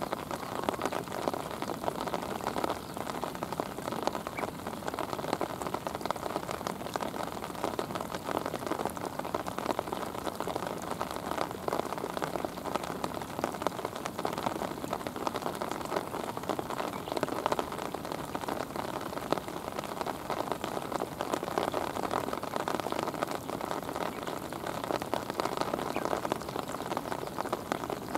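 Steady rain falling, a continuous hiss made up of countless small drop impacts.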